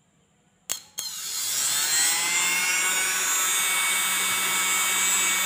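RS775 DC motor with a grinder head and cutting disc, fed from a 3S lithium battery pack through a DC speed controller. After two sharp clicks as the power lead is clipped on, it spins up, its whine rising in pitch for about a second, then runs steadily at speed.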